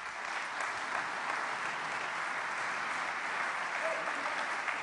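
Large seated audience applauding, a dense, steady clapping.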